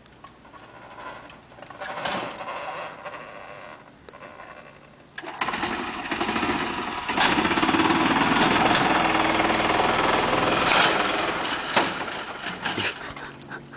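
Golf cart's small petrol engine running at low speed, then revving hard under load from about five seconds in as the cart climbs the ramps into a pickup bed, easing off after about six seconds of full throttle.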